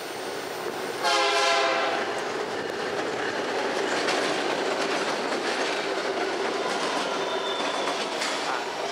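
Nathan K3LA horn on the lead diesel locomotive sounding one short blast about a second in. Then the locomotives and auto-rack cars roll past close by with a steady clickety-clack of wheels on rail.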